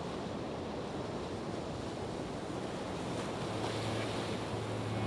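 Steady rushing noise like surf or wind, with a low steady hum coming in about three seconds in.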